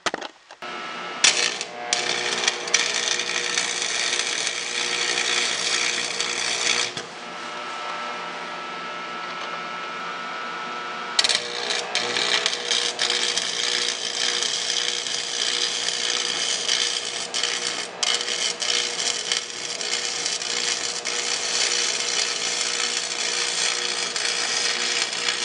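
AC stick (arc) welding at about 110 amps on a snowblower's transmission drive bushing: the electrode arc crackles steadily in two runs, the first lasting about seven seconds and the second starting about eleven seconds in. A steady hum carries on through the gap between them.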